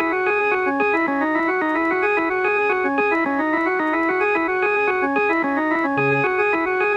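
Background music: an organ-like keyboard playing a fast run of short notes, about five a second, with a brief low bass note about six seconds in.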